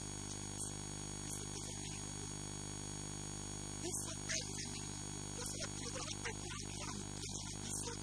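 Steady electrical mains hum with many evenly spaced overtones, with a man's voice coming through in short, broken fragments, mostly in the second half.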